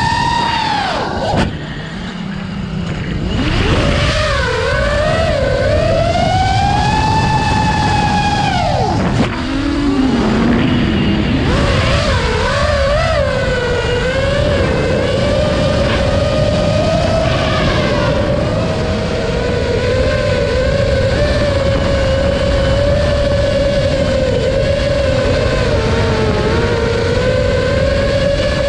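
Impulse Reverb FPV quadcopter's four HypeTrain 2207 2450 kV brushless motors and Gemfan 5144 props whining in flight, the pitch rising and falling with the throttle. The pitch drops sharply about a second in and sinks low again around nine to eleven seconds in, then holds fairly steady for the second half.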